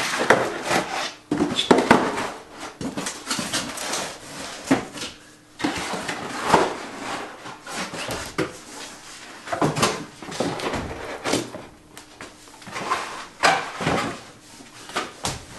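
Cardboard packaging being pulled apart and handled: irregular scraping and rustling of cardboard inserts with sharp knocks and thumps as the pieces are lifted off and set down.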